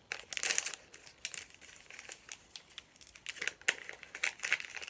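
Wrapping crinkling and tearing in irregular bursts as it is pulled off a Mini Brands toy capsule.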